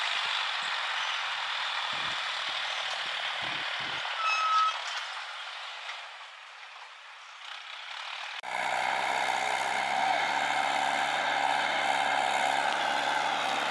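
Tractor diesel engines working: a steady, noisy engine sound that fades about halfway through, then an abrupt cut to a louder, steady engine note.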